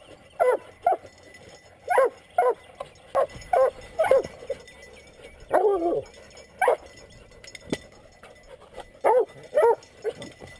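Several young coonhounds barking up a tree in short, irregular bursts, with one longer bawl about halfway through: treeing at a raccoon raised in the tree.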